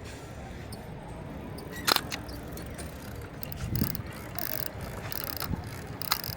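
Kowa Six medium format film camera: one sharp shutter-and-mirror click about two seconds in, then a run of ratcheting clicks as the film is wound on, over steady outdoor background noise.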